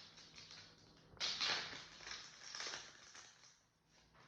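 Foil booster-pack wrapper crinkling and rustling as it is handled and torn open, in a few noisy bursts between about one and three seconds in.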